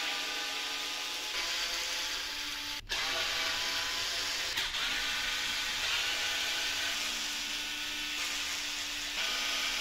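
Small electric power tool running steadily with a whining motor tone, its pitch and level stepping slightly several times, as screws are worked during the strip-down of an RC crawler.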